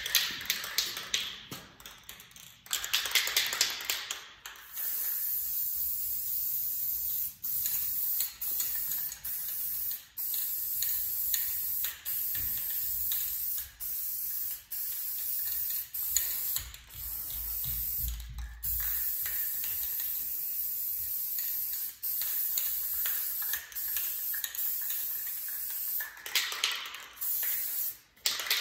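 Aerosol spray-paint can hissing in long steady bursts broken by short pauses, laying on a first coat of paint. At the start and again near the end comes a quick clicking rattle, the can being shaken so its mixing ball rattles.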